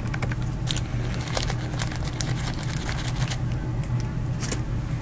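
Scattered light clicks and rustles of handling at a table, over a steady low electrical hum.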